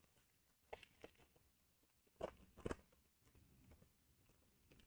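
Faint crinkling and tearing of a foil trading-card pack wrapper as it is torn open, in a few short crackles about a second in and again between two and three seconds in.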